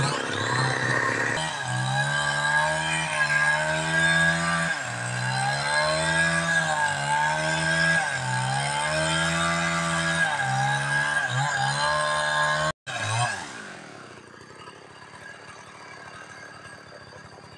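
Two-stroke chainsaw running at high revs, its pitch repeatedly dipping and recovering as it bogs under load in the cut. The sound stops abruptly about 13 seconds in, leaving a much quieter steady hum.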